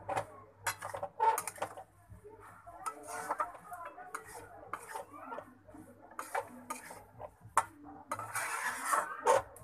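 Metal spatula scraping and knocking against a metal kadai (wok) while stirring and tossing cooked shredded cabbage, in irregular clinks and scrapes, with a longer stretch of scraping near the end.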